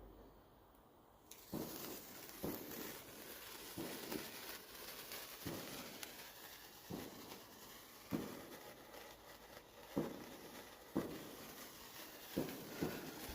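Wood fire crackling in a fireplace: a soft steady hiss with irregular sharp pops, about one a second, starting about a second in.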